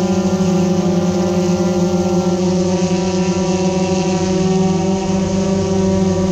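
Steady mechanical hum of motors, with several held tones and no change in pitch.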